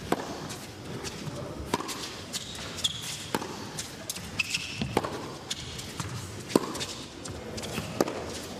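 Tennis rally: racquets striking the ball and the ball bouncing on the court, a sharp pop about every second, with a few short shoe squeaks in between.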